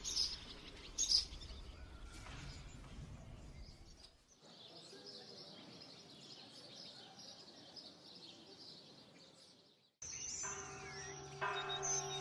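Faint outdoor ambience with small birds chirping. About ten seconds in, a church bell starts ringing, about one strike a second, each strike humming on.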